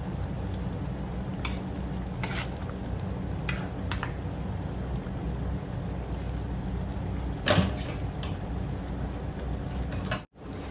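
A metal ladle scraping and knocking against a wok as a stew is stirred: half a dozen short strokes, the loudest about seven and a half seconds in, over the steady sound of the stew simmering.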